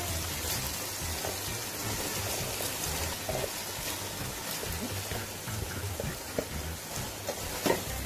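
Spice masala sizzling and frying in a pan with black-eyed beans on top, a steady crackle with small pops throughout. A sharp click near the end as a spoon goes into the pan to stir.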